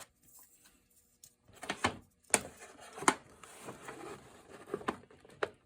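Handling sounds on a wooden piano soundboard: several sharp taps and clicks with soft rustling between them, as a paper decal is measured and positioned by hand.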